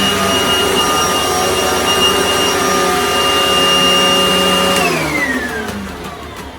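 Miele S183 PowerHouse upright vacuum, a rebranded Panasonic with a 12 amp motor, running with a steady motor whine. About five seconds in it is shut off and the whine falls in pitch as the motor winds down.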